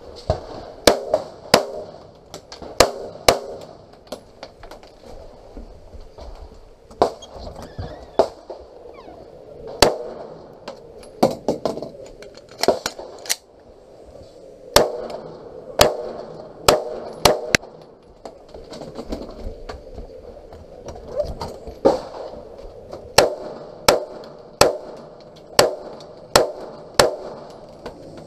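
Pistol shots fired close by, mostly in quick pairs and short runs of three or four, with pauses of a second or more between groups as the shooter moves between firing positions; dozens of shots in all.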